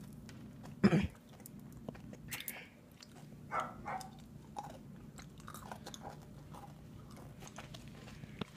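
A person chewing and crunching M&M's candies, with many small clicks scattered throughout. About a second in comes a short, loud vocal sound, falling in pitch.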